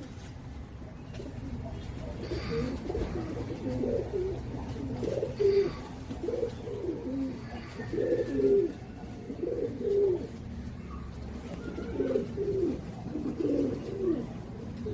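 Several Teddy pigeons cooing, their low, wavering coos repeating and overlapping one another.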